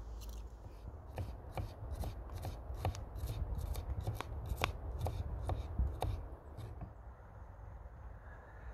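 Kitchen knife slicing garlic cloves on a wooden cutting board: a run of crisp cuts, each ending in a tap of the blade on the board, about two a second, stopping about seven seconds in.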